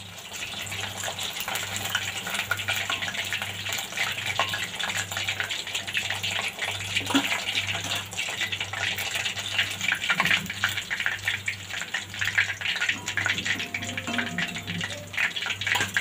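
Chicken lollipops deep-frying in a kadai of hot oil on their first fry: a dense, steady sizzling crackle.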